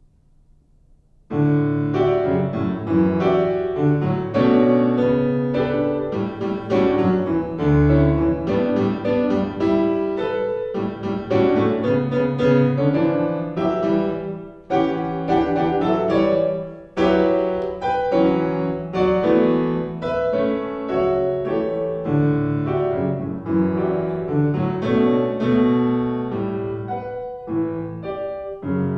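Steinway grand piano playing a piano sonata: after a brief near-silent pause the piano comes in suddenly about a second in, then plays on without a break in dense chords and many quick notes.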